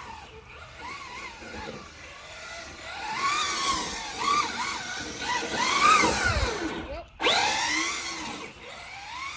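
Traxxas 4-Tec 3.0 RC car's electric motor whining, rising and falling in pitch as it speeds up and slows again and again. It cuts out briefly about seven seconds in, then comes back loud.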